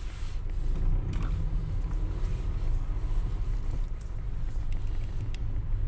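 Car engine running with a steady low rumble as the car sets off slowly, with a few light clicks near the end.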